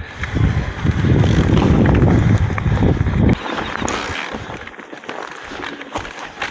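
Mountain bike riding down a trail, with tyres rolling over the ground and the bike rattling in scattered clicks. Heavy wind buffeting on the microphone fills the first three seconds and cuts off suddenly.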